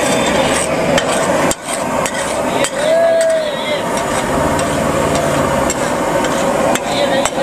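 Flat metal spatula scraping, pressing and knocking on a large flat griddle (tawa) as pav bhaji is mashed and spread, with sharp clanks now and then. A short wavering tone rises and falls about three seconds in.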